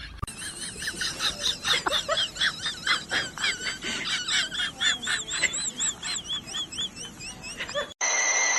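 Rapid, high-pitched chirping or squealing from a small animal, several short arched calls a second. Near the end it cuts off abruptly to a steady high tone over hiss.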